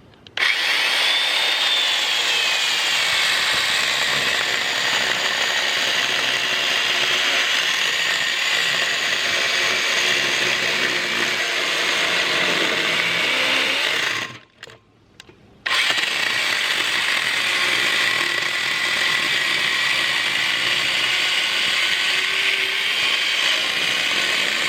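Electric chainsaw running and cutting through a very dry, hard black locust log, with a steady motor whine. It stops briefly about 14 seconds in, then starts cutting again.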